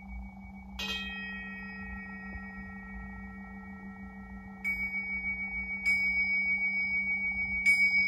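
A small handheld metal instrument struck several times: one strike about a second in rings with several bright high tones, then three quicker strikes near the end each leave a clear high ringing tone. A steady low hum carries on underneath.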